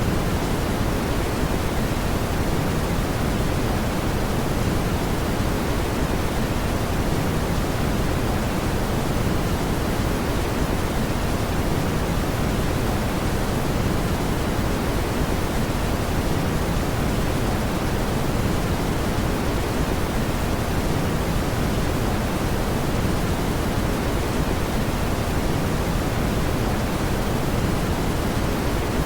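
Steady brown noise: an even, deep rushing hiss, strongest in the low end and softer in the highs, with no change in level.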